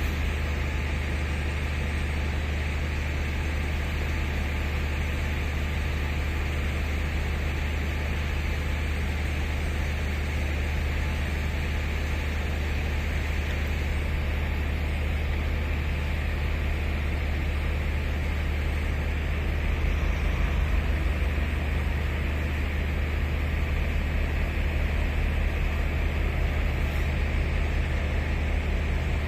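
Class 5E1 electric locomotive's traction-motor blowers running steadily, a continuous low hum under a rushing whir, slightly louder about two-thirds of the way through.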